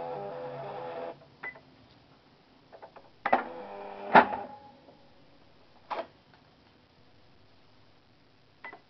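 Cash register being operated: a steady mechanical hum for about a second, then scattered clicks and knocks, the loudest a sharp clunk about four seconds in.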